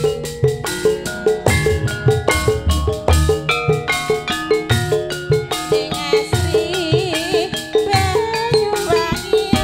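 Javanese gamelan playing tayub music: bronze metallophones and kettle gongs strike a steady repeating melody over kendang drum strokes. From about six seconds in, a wavering melodic line with vibrato joins, a sinden's singing voice.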